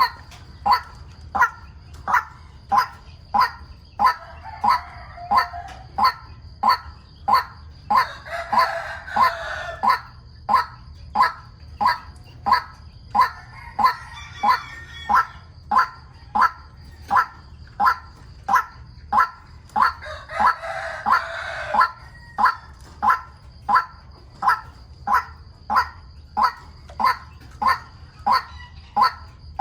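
White-breasted waterhen calling a loud, monotonous note over and over, about three calls every two seconds. Several times a longer, rougher burst of calling joins in, and a steady high whine and a low hum run underneath.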